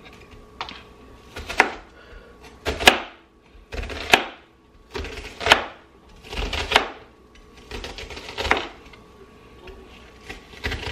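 Kitchen knife dicing a red onion on a cutting board: irregular knocks of the blade hitting the board about once a second, with lighter cuts in between.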